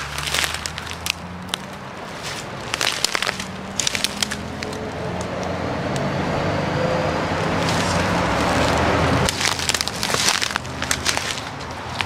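Footsteps crunching through dry leaves and debris. In the middle, a vehicle's rushing noise builds for several seconds and then cuts off abruptly.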